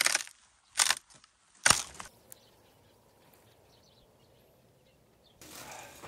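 Dry dead branches being snapped off a bare tree: three sharp cracks, about a second apart, in the first two seconds. A faint steady outdoor hiss comes in near the end.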